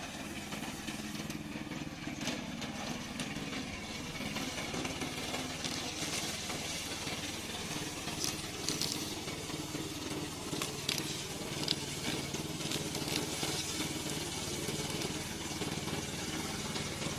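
Remote-control tracked slope mower's engine running steadily, with a few short faint clicks over it.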